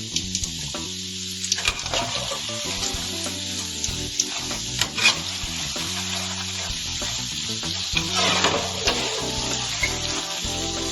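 Puff puff dough balls deep-frying in hot oil: a steady sizzle with scattered crackles and pops, crackling more densely about eight seconds in.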